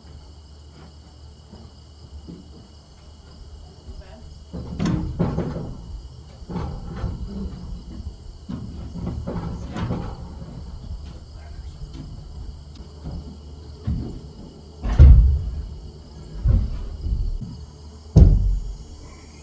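Knocks and thuds of wood as a rafter is handled and set in place, the heaviest thumps coming about fifteen and eighteen seconds in. Crickets chirp steadily underneath.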